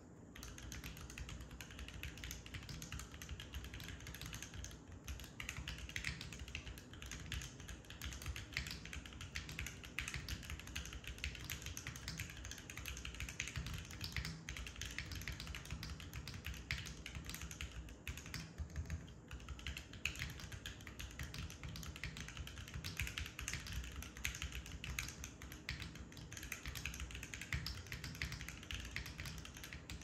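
Continuous typing on a Vertex ARC 60 keyboard: a plateless, gasket-mount aluminium-case build with lubed Drop Holy Panda X tactile switches, no foam, and cherry-profile keycaps, giving a steady stream of keystrokes.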